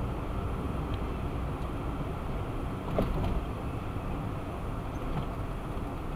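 Steady road and engine noise of a car driving at about 33 km/h, heard from inside the cabin, with one brief knock about three seconds in.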